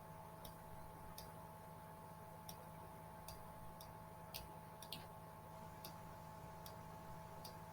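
Faint computer mouse clicks, about a dozen at irregular intervals, over a low steady electrical hum.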